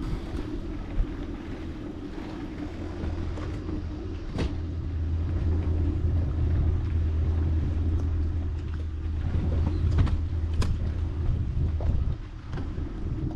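Boat motor running steadily, growing louder through the middle and easing off near the end, with wind on the microphone and a few sharp clicks.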